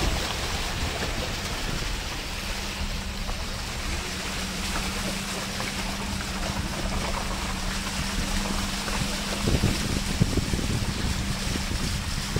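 Maruti Suzuki Alto rolling slowly through shallow muddy floodwater: tyres sloshing and splashing over a steady engine hum. A few knocks come about nine to ten seconds in.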